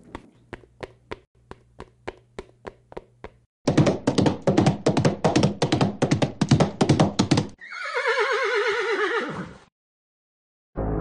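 Horse hoofbeats clip-clopping as an added sound effect, faint and slow at first, then louder and quicker from about a third of the way in. They are followed by a horse whinnying with a wavering pitch for about two seconds. A steady loud sound starts just before the end.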